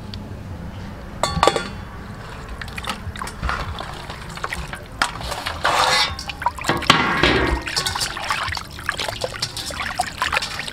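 Hands washing skinned rat carcasses in water in a stainless steel bowl: irregular splashing and sloshing that starts about a second in and is busiest in the middle.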